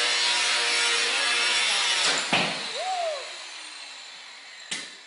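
Angle grinder grinding metal with a loud, steady whine. A little over two seconds in there is a sudden sharp bang, after which the grinding noise dies away and the motor's pitch falls as it spins down.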